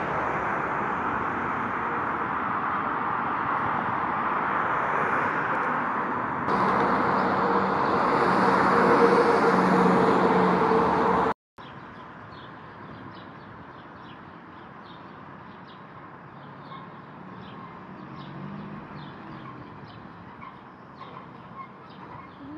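Loud, steady road traffic noise from cars driving past, cutting off abruptly about eleven seconds in. After that comes a much quieter, steady city background with small birds chirping over and over.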